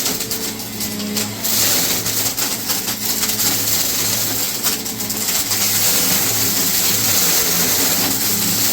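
Vacuum cleaner running, a steady motor hum under a loud rushing hiss of air that swells and eases slightly.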